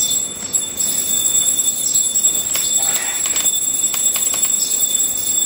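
Steady hiss with a constant high-pitched electronic whine from a running desktop PC, with a few faint clicks in the middle.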